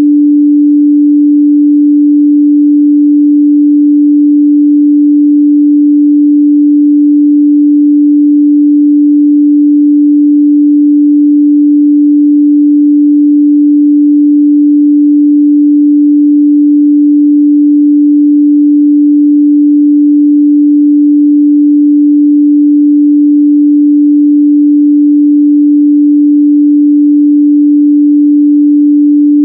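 A continuous pure 293 Hz sine-wave test tone, a steady midrange hum at constant loudness, used to check a speaker's or headphones' response.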